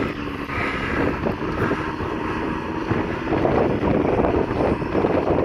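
A side-by-side UTV's engine running while it tries to cross a snow drift, with wind buffeting the microphone.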